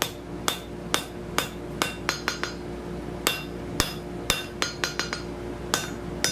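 Hand hammer striking a red-hot steel bar on an anvil, forging it to a taper: ringing blows about two a second, with quick lighter taps between some of them and a short pause near the middle.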